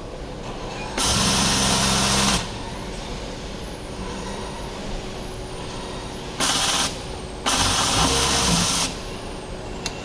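Richpeace mattress protector sewing machine running in three short bursts, each a loud hiss of compressed air over a low motor hum. The first and third last about a second and a half, and a brief one comes just before the third.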